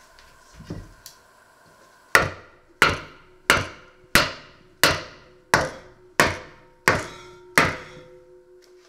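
A hammer pounding a wooden board that is pressed down on food in a pot. There are nine sharp, even blows about two-thirds of a second apart, starting about two seconds in, each ringing briefly. A softer thump comes just before them as the board is set down.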